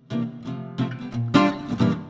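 Background music on acoustic guitar: a string of picked notes and chords, each struck sharply and left to ring.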